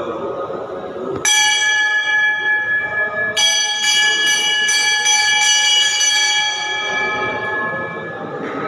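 Hindu temple bell struck about a second in and again about two seconds later, each strike giving a long ringing with many overtones that gradually fades away near the end.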